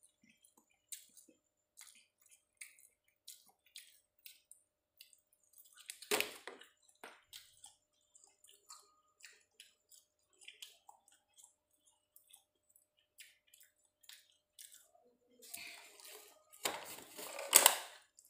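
Small wet mouth clicks from chewing and licking the fingers after eating fried chicken, with a louder click about six seconds in. Near the end a thin clear plastic food box crackles as it is handled and lifted aside.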